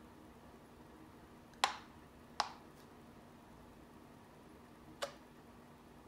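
Three short, sharp taps: one just before two seconds in, another about half a second later, and a third about five seconds in. They come from a small plastic cup knocking against a canvas as it is worked through wet poured acrylic paint, over a faint steady hum.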